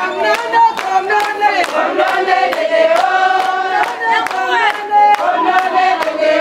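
Group of voices singing or chanting together, with sharp percussive strikes keeping a steady beat of about three a second.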